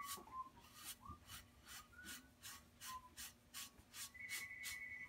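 Faint scrubbing of a damp sponge rubbed back and forth over a glazed bisqueware plate, about three strokes a second. The sponge is wiping the glaze off the raised surface so that it stays only in the pressed doily pattern.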